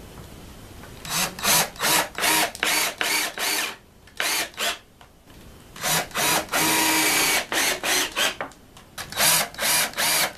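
Cordless drill run in short trigger bursts into a wooden board, its motor whine rising and falling with each squeeze. There is one longer steady run about six to seven and a half seconds in.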